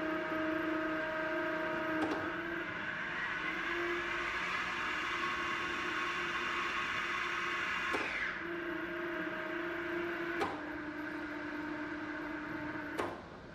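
J A Fay & Egan No. 400 wood lathe's three-phase motorized headstock running with a steady whine while its speed control is worked. Sharp clicks of the lever come about two seconds in, about eight seconds in, after about ten seconds and near the end. The whine rises in pitch after the first click and falls after the second, and the running sound drops away after the last.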